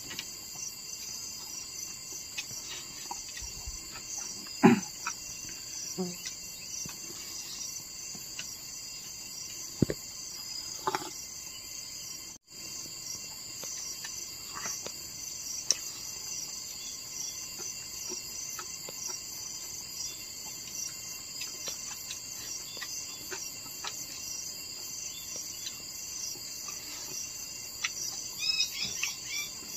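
Steady high-pitched trilling of insects, with a few scattered knocks and some brief bird chirps near the end.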